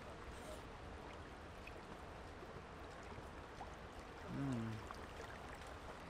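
Faint, steady rush of the Boise River flowing. About four seconds in, a man's voice gives one short sound that falls in pitch.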